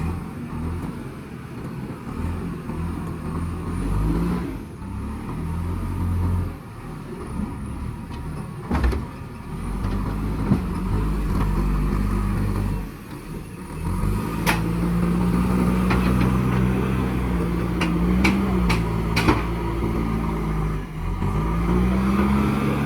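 Diesel engine of a JCB backhoe loader running under load, its speed rising and falling repeatedly as the machine works, with several sharp metallic knocks.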